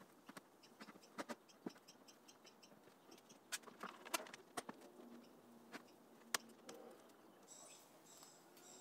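Faint, scattered clicks and knocks of one-handed bar clamps being set and tightened on a glued-up hardwood frame. Faint high-pitched bird chirping repeats at the start and again near the end.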